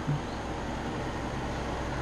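Steady background hum and hiss of room tone, with no distinct knocks or clicks.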